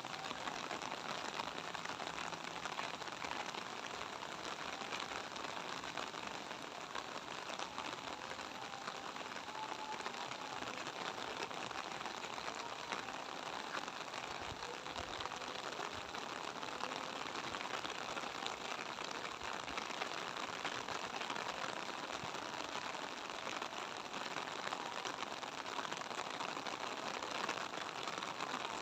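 Light rain falling steadily, a dense, even patter of many small drops tapping on surfaces.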